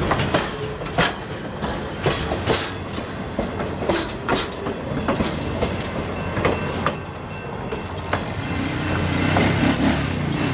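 Passenger coaches and a caboose rolling slowly past, their wheels giving irregular clicks and knocks over the rail joints above a steady rumble. A low steady hum joins near the end as the train moves away.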